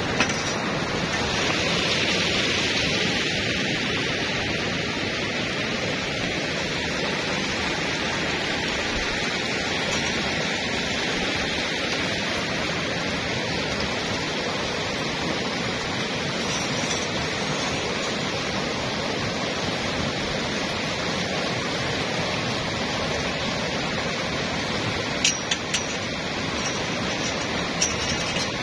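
Steady rush of flowing water, an even noise that goes on unchanged, with a few sharp clicks near the end.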